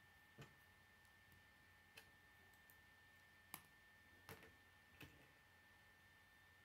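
Faint, sparse clicks of plastic K'nex rods and connectors being handled and pressed together, about five sharp ticks a second or so apart, over a faint steady high-pitched tone.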